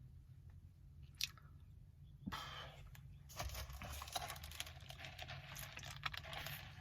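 A person chewing and crunching fast food. A brief sound comes about a second in, then steady crunchy chewing from about two seconds in.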